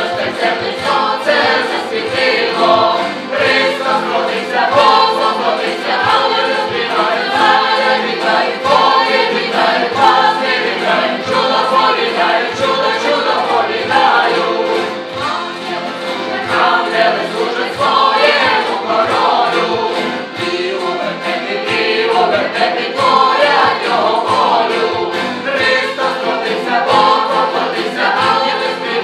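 A group of voices singing a song in chorus, accompanied by acoustic guitar and accordion over a steady beat.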